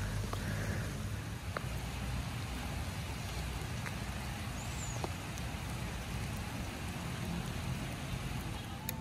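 Steady outdoor ambience: an even rushing noise with a low rumble underneath and a few faint ticks.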